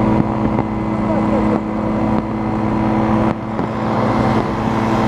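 Rotax 503 two-stroke engine and propeller of a paratrike droning steadily in flight, with a few sudden dips in loudness.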